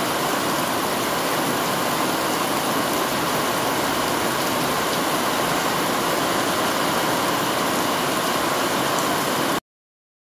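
Heavy rain pouring down, splashing into a brim-full plastic water drum and onto the surrounding plants as a dense, steady hiss. It cuts off abruptly near the end.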